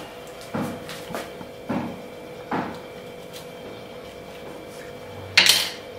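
Kitchen knife cutting through a red onion on a wooden chopping board, the blade knocking the board in four short taps, then a louder knock near the end.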